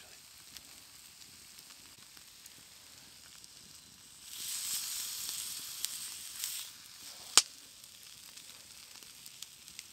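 Venison steaks on a flat rock heated in a campfire, sizzling in a loud hissing burst for about two seconds, starting some four seconds in as a steak is turned over. Under it the wood fire crackles faintly, and a little after the sizzle the burning wood gives one sharp, loud pop.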